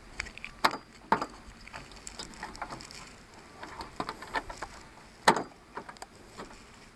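Parts of a hand-push seed planter clicking and knocking as they are fitted together by hand, in scattered short knocks; the sharpest is about five seconds in.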